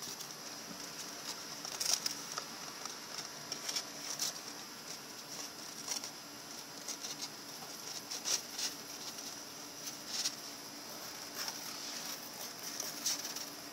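A hamster's claws scrabbling and scratching on a cardboard box and its foam packing as it climbs about: irregular light scratches and taps coming in short flurries.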